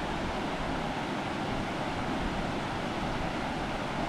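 Steady rushing of a waterfall, an even wash of water noise without breaks.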